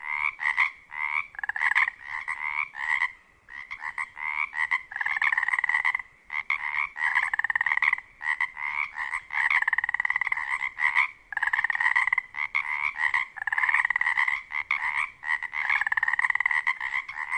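Chorus of male Pacific tree frogs (Pacific chorus frogs) calling in a dense run of short, rapidly repeated, overlapping croaks, with brief lulls now and then. This is their spring mating chorus, sung to attract females.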